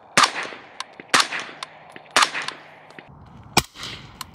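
Three suppressed 5.56 rifle shots through a Stealth Additive Works Ekron 556 suppressor, about a second apart, each with a sharp crack followed by echo off the surroundings. Two more sharp cracks come near the end.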